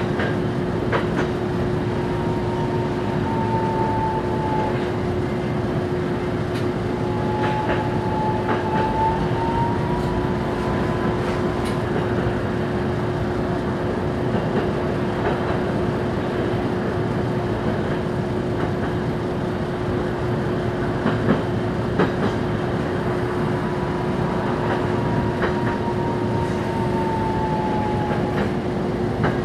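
Inside a Toyohashi Railway 780-series tram running along its street track: a steady rumble of wheels and running gear with a constant low hum. A faint whine drifts in pitch a few times, and there are scattered clicks, with two sharper knocks about two-thirds of the way through.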